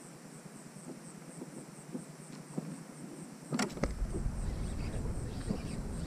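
An insect chirping in steady high pulses, about three a second. About three and a half seconds in comes a sharp knock, followed by louder low rumbling noise.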